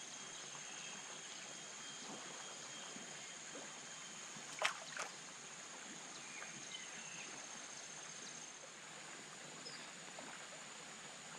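Steady outdoor ambience with insects droning on one high thin note, which fades out about three-quarters of the way through. Two sharp clicks come close together about halfway.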